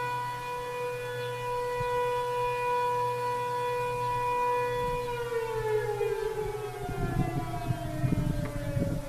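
Sentry 7V8-B outdoor warning siren holding its steady Alert tone, then winding down about five seconds in, the pitch falling slowly. Uneven low rumbling comes in over the last few seconds.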